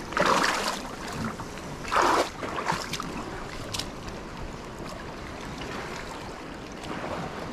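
Shallow seawater lapping and sloshing among rocks, with two louder splashy swells, one near the start and one about two seconds in, and a sharp click just before four seconds in.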